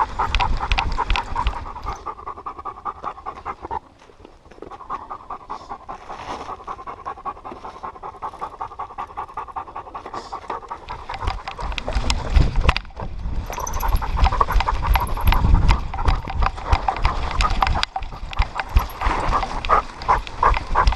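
A dog panting close to the microphone in quick, even breaths. From about twelve seconds in, heavier low thudding and rumble join the panting as the dog moves along the trail.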